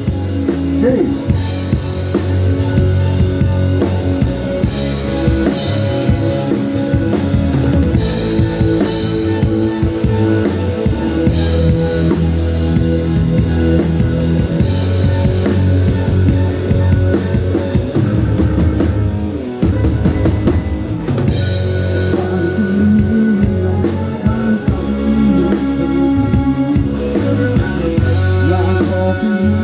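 Live rock band playing through a PA: drum kit with kick drum, bass and electric guitar, with a short break about twenty seconds in.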